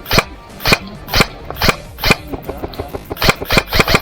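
Airsoft gun firing single sharp shots about twice a second, then a quicker run of shots near the end.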